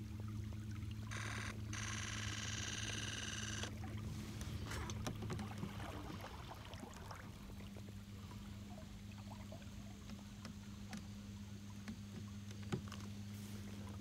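Belted kingfisher giving its dry rattling call for about two and a half seconds, starting about a second in. Under it runs a steady low hum, with small clicks and water sounds from the kayak.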